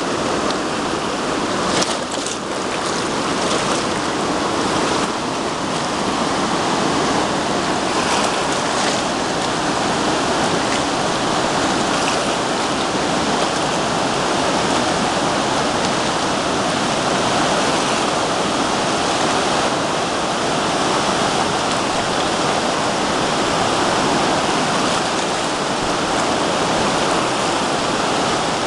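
The West River in flood after hours of heavy rain, its high, fast brown water rushing steadily.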